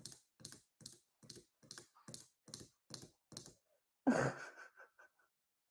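Fingernails tapping in a steady ASMR-style rhythm, about two and a half light taps a second, stopping a little after three seconds in. About four seconds in, a person gives a short breathy exhale.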